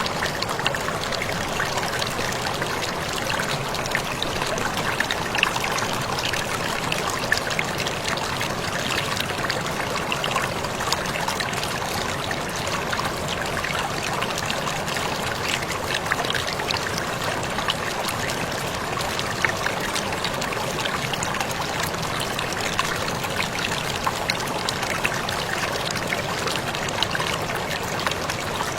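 Waterfall: a steady, even wash of falling water scattered with small sharp splashes and drips.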